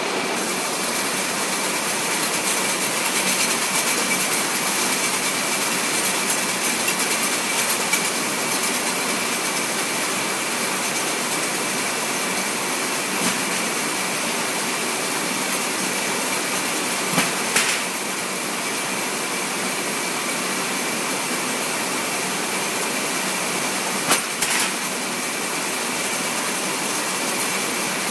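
Steady machine noise of warehouse conveyor equipment: a constant hiss with a faint steady high tone, broken by two quick pairs of sharp knocks, one past the middle and one near the end.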